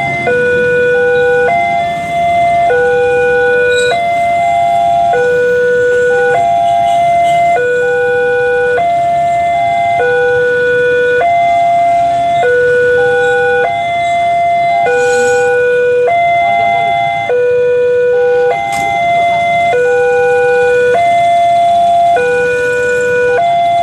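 Railway level crossing's electronic warning alarm sounding a repeating pattern, a low tone followed by higher tones, about every two and a half seconds, as a train passes with a low rumble underneath.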